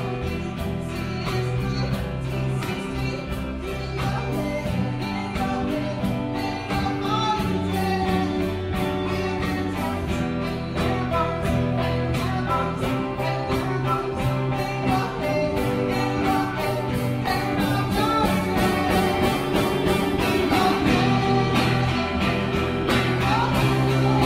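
Live rock song played at an open mic: a singer's voice over guitar with a steady beat.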